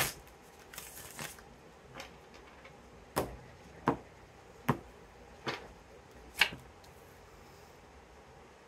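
Tarot cards being handled: a short rustle, then a string of sharp card snaps about a second apart, the last and loudest about two-thirds of the way through.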